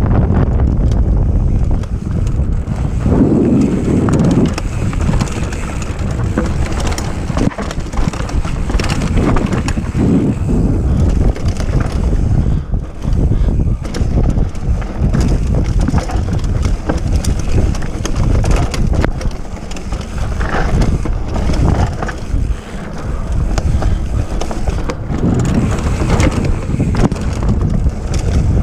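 Wind buffeting a helmet camera's microphone as a mountain bike descends a dirt trail, with the tyres rolling over the dirt and frequent knocks and rattles from the bike over bumps.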